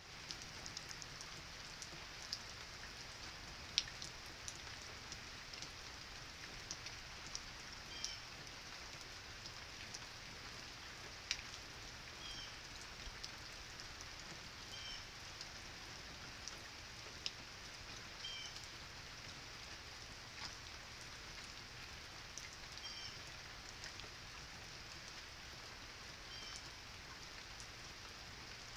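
Steady rain, with single raindrops ticking sharply now and then. A short, faint high chirp recurs every three or four seconds.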